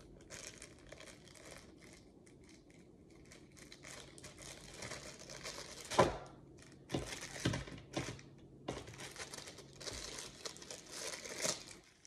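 Thin plastic bag crinkling and rustling as it is handled and opened to get the charging cable out, with a sharper crackle about halfway through and busier rustling in the second half.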